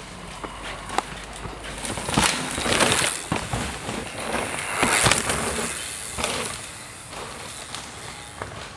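Mountain bike riding fast down a dirt forest trail: tyres crunching over soil and snapping twigs, with sharp cracks and knocks as the bike goes over roots and bumps, loudest a few seconds in.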